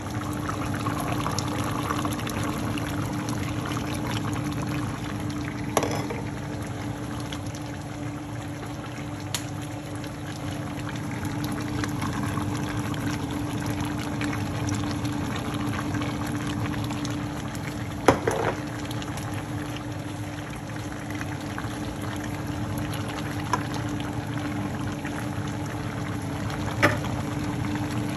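A pot of mutton stew simmering on the stove, bubbling steadily over a constant low hum, with a few sharp knocks, the loudest about two-thirds of the way through.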